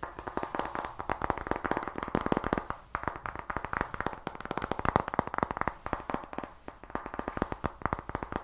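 Rapid fingernail tapping on a black plastic makeup powder compact, many quick taps a second with a short break about three seconds in.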